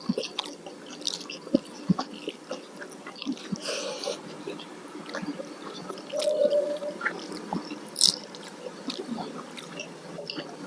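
Close-miked eating sounds: chewing and wet mouth noises with many small scattered clicks.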